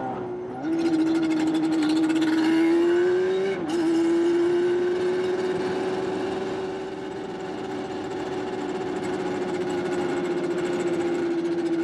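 Yamaha Banshee's big-bore 421cc two-stroke twin engine held at steady high revs. Its pitch climbs under throttle about a second in, dips briefly around three and a half seconds, then holds nearly level.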